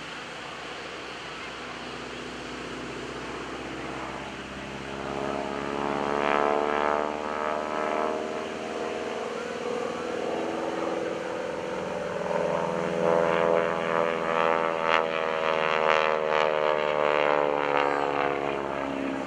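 North American SNJ-5 Texan's nine-cylinder Pratt & Whitney R-1340 radial engine and propeller running at aerobatic power. The sound grows louder about four seconds in, its pitch rising and falling as the aeroplane manoeuvres, and is loudest in the last third.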